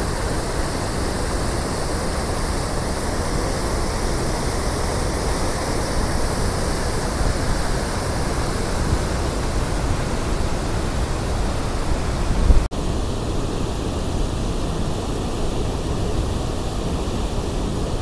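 Steady roar of rushing water from Randha Falls, a large waterfall: a full, even hiss with a deep rumble underneath. It breaks off for an instant about two-thirds of the way through, then carries on.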